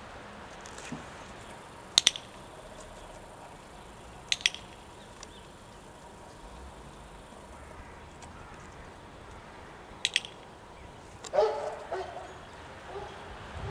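Handheld training clicker clicked three times, each a sharp double click, marking the puppy for getting onto the floor target board. Near the end a short pitched vocal sound, louder than the clicks.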